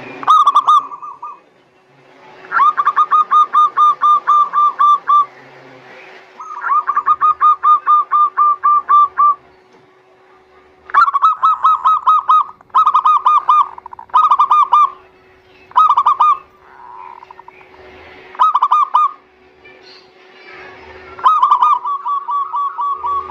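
Zebra doves (perkutut) singing: repeated bursts of fast, rippling cooing notes, each burst lasting from about half a second to nearly three seconds with short pauses between. A faint steady hum runs underneath.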